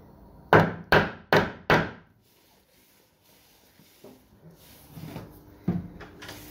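Four sharp blows in quick succession on a wooden door frame, then two lighter knocks a few seconds later: the frame is being knocked over at its foot to correct a gap where the door sits too tight.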